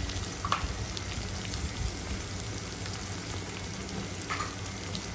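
Cubed potatoes and sliced onion frying in hot oil in a karai, a steady sizzle with small crackles.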